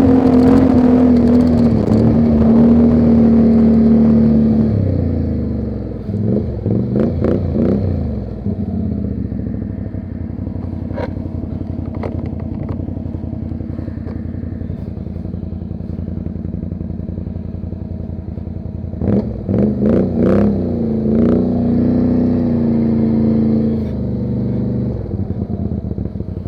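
ATV engine running under way, held at higher revs for the first few seconds, then easing to a lower, steady speed. The revs rise and fall briefly twice, about a quarter and three quarters of the way through, with a few sharp knocks and rattles in between.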